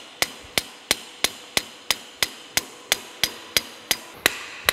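Hand hammer striking steel Vise-Grip locking pliers clamped on the seized, torch-heated shaft of an ice cream churn's gear frame, working it to break it loose. Sharp metallic blows with a ring, in a steady rhythm of about three a second, the last near the end the hardest.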